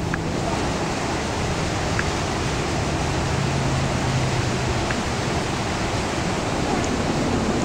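Steady rushing noise, even and unbroken, with a faint low hum in the middle.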